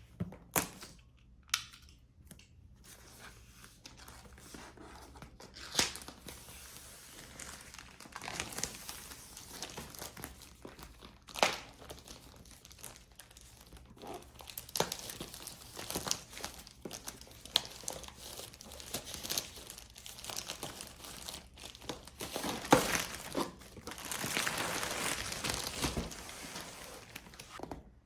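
Crinkling and tearing of packaging being handled, with scattered sharp clicks and knocks and a longer continuous rustle near the end.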